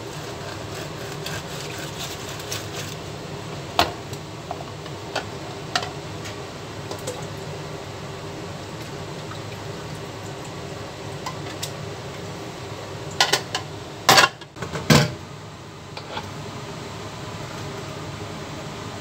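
Dishes and utensils clinking and knocking now and then over a steady machinery hum, with a short run of loud knocks about thirteen to fifteen seconds in.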